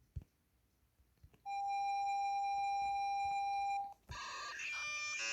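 Emergency alert tone: a single steady electronic beep held for about two seconds, then after a short break a jumbled run of quickly changing electronic tones, like a video game crashing. Two faint clicks come just before it.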